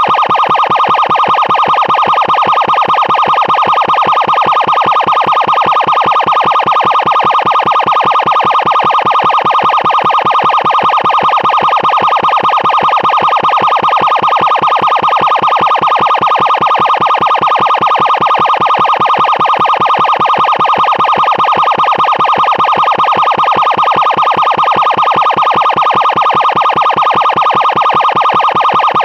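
Loud emergency siren sounding at a steady pitch with a fast, even pulsing, unchanging in level or pitch.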